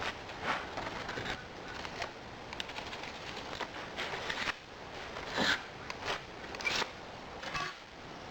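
Foundry backing sand being scooped and worked into a moulding flask: irregular gritty scrapes and rustles, with a few louder scrapes about five and a half and seven seconds in.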